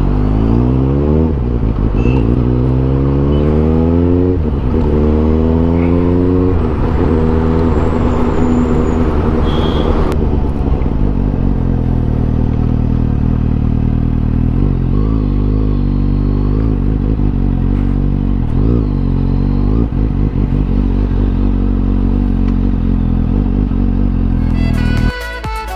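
Suzuki GSX-S750's inline-four engine through a MIVV Suono slip-on exhaust, heard raw while riding. The revs climb and drop several times in the first few seconds as it pulls up through the gears, then it runs at a steadier speed with small rises and falls. It cuts off suddenly near the end.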